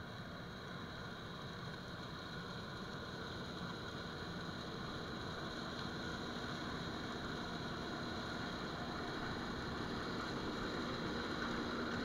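A John Deere 9510 combine harvesting soybeans with a 618F flex platform header: steady engine and machinery noise that grows louder as the combine closes in.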